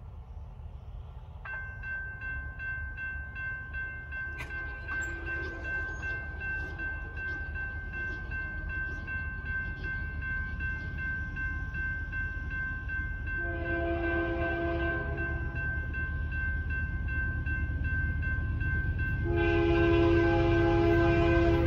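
Railroad crossing warning bell starts ringing about a second and a half in as the gates lower, over the low rumble of an approaching freight train that grows steadily louder. The lead locomotive's horn sounds one blast of about two seconds past the middle and starts a second, louder blast near the end.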